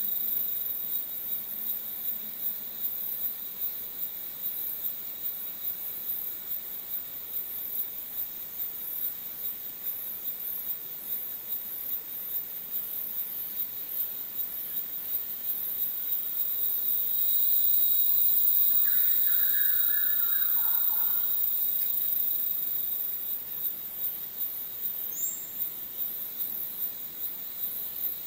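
Bornean rainforest insect chorus: a dense, high-pitched pulsing buzz with steady whining tones beneath it, swelling for a few seconds a little past the middle. A brief lower call sounds during the swell, and a short rising chirp a little before the end.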